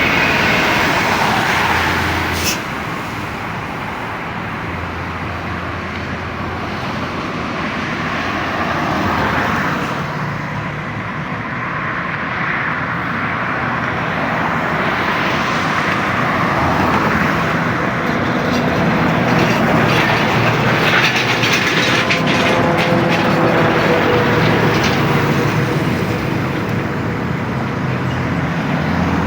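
Road traffic with buses passing: engines running and tyre noise, steady throughout, with a sharp click a couple of seconds in.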